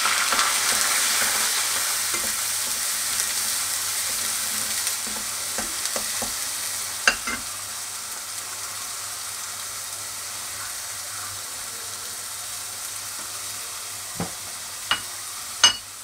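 Ground onion paste sizzling in hot oil in a kadhai, the hiss loud at first and fading steadily as the paste cooks. A metal ladle clinks against the pan a few times, mostly near the end.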